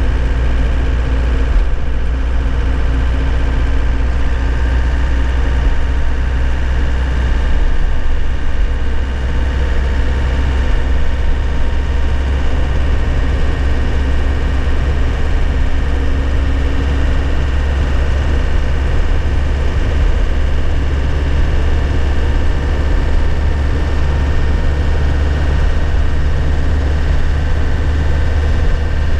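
2001 Nissan Cabstar truck's engine running steadily while driving, heard from inside the cab as a steady low rumble.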